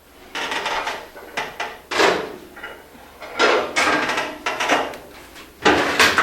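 Sheet-copper roofing pans being handled and folded: a series of irregular metal rattles and clanks, the sharpest about two seconds in and just before the end.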